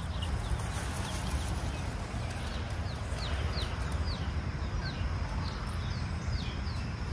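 Baby poultry peeping: short, high peeps that fall in pitch, about two a second, over a steady low rumble.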